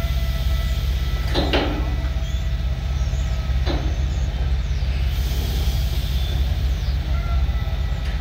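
Heavy diesel lorry engine running with a steady low rumble, with two brief sharp sounds about a second and a half and nearly four seconds in.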